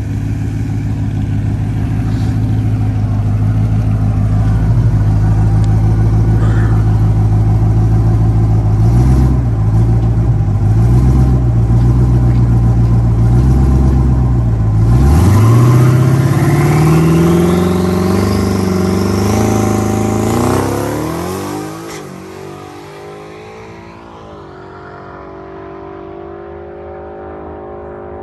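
Twin-turbocharged Ford Coyote 5.0 V8 in a Mustang GT, running steadily at the starting line, then revving up and down for several seconds before launching about fifteen seconds in. The engine climbs steeply in pitch under full throttle with a high turbo whine rising over it, then fades quickly as the car pulls away down the drag strip.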